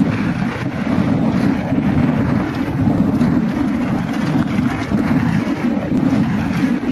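Continuous rumble and rush of a downhill mountain-bike descent: wind buffeting the camera microphone mixed with the bike and tyres rattling over rough trail.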